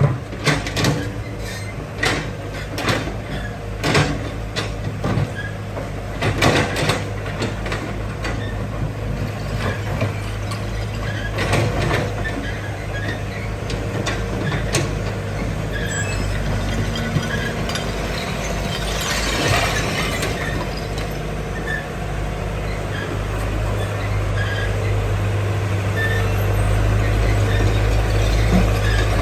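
Excavator running with a steady low engine hum, with repeated knocks and crashes of debris in the first half as it clears an old house; the engine grows a little louder near the end.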